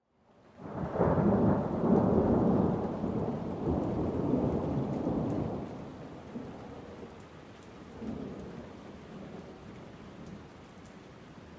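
Thunderstorm: a long roll of thunder swells in within the first second, stays loud for several seconds and slowly fades, with a smaller rumble about eight seconds in, over a faint hiss of rain.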